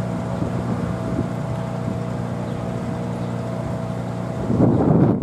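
Heavy diesel machinery idling steadily: a low, even engine hum with a faint steady whine above it. Near the end wind buffets the microphone, covering the engine.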